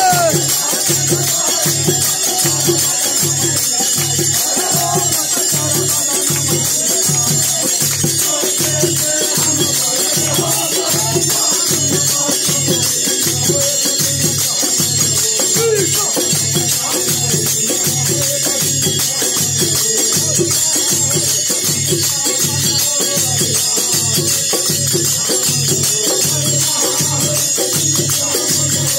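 Holi folk music: brass hand cymbals (jhaal) clashing continuously over a drum keeping a steady beat, with voices singing along.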